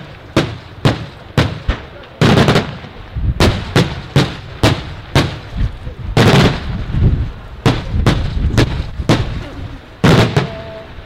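Daytime fireworks: a rapid, irregular string of loud bangs from aerial shells, one or two a second, with heavier clustered blasts about two, six and ten seconds in.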